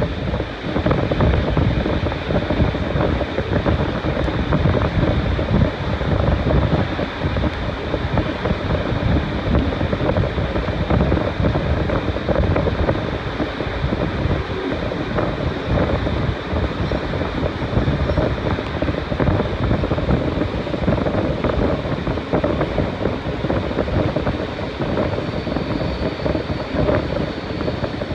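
Heritage steam-hauled train running along the track, heard from an open carriage window: a steady rumble of wheels on rails with wind buffeting the microphone.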